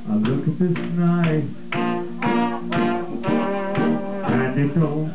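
Live band music with a regular beat and sustained pitched notes.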